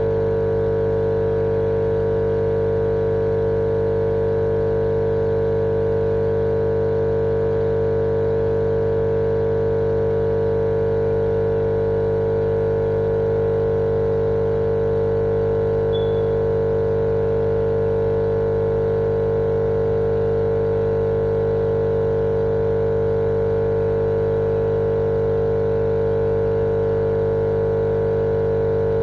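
Steady, unchanging machine drone played as a baby-sleep white-noise track: a continuous motor hum with a strong mid-low tone over it, never varying in level.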